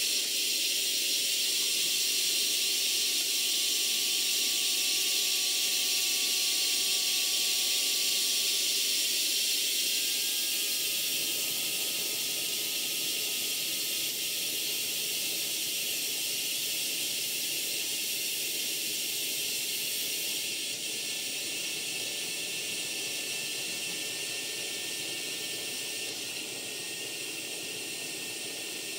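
Steam hissing steadily from a 5-inch gauge GWR 14XX live-steam model locomotive, its safety valve blowing off, with faint thin whistling tones over the hiss. The hiss eases a little about a third of the way in and again past two thirds.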